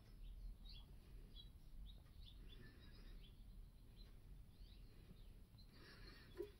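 Near silence: a low steady hum with faint, scattered bird chirps, and one soft knock near the end.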